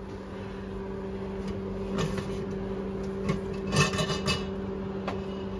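Perforated metal baguette pan knocking and scraping against the rack as it is slid out of an open microwave convection oven, with a burst of clatter about four seconds in. A steady low hum runs underneath.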